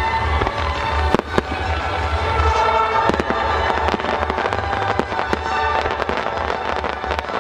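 Fireworks going off in a string of sharp bangs and crackles, with music playing along throughout.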